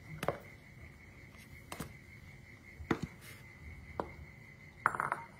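Cat eating from a bowl, with sharp chewing clicks about once a second, and a short clatter near the end.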